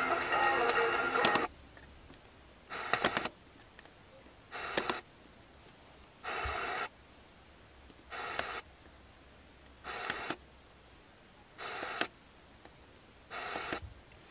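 Pioneer car radio scanning down the medium-wave (AM) band. The programme on the first station cuts off about a second and a half in. After that the tuner stays muted between channels and lets through short bursts of reception about every second and a half to two seconds, each with a click, as it steps from frequency to frequency.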